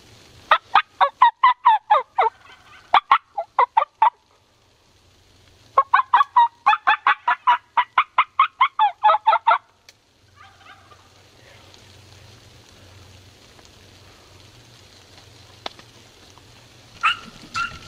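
Turkey yelping: two long runs of rapid, evenly spaced yelp notes, about four or five a second, each bending down in pitch, followed by a brief louder call near the end.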